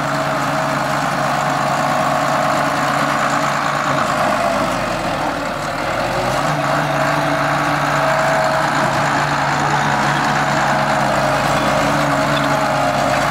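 John Deere 850B crawler dozer's diesel engine running steadily, a good strong runner. Its pitch sags a little about four seconds in and picks back up at about six and a half seconds.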